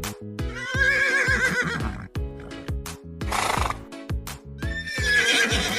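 Horse whinnying twice, each a shaky, wavering neigh, with a short breathy noise between them, over background music with a steady beat.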